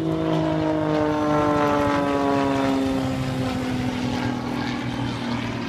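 An aircraft flying past overhead at an air show, its engine drone held steady while its pitch falls slowly as it passes.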